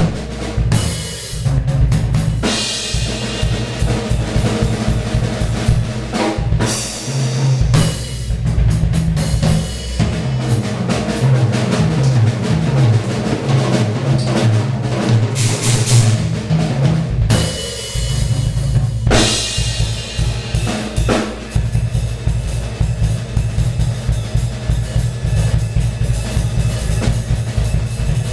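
Acoustic drum kit played in a fast improvised solo: dense bass drum and snare strokes with runs of tom hits stepping up and down in pitch. Cymbals crash now and then, each wash lasting a second or two.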